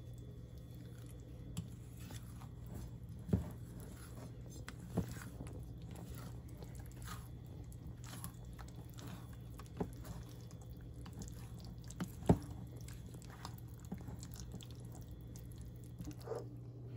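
Silicone spatula stirring thick, wet pistachio pudding and crushed pineapple in a stainless steel bowl: soft squishing and scraping, with a few sharp taps of the spatula against the metal bowl.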